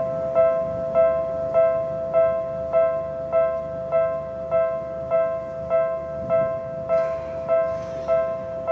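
Railway level-crossing alarm ringing: the same bell-like electronic tone repeats evenly, a little under twice a second.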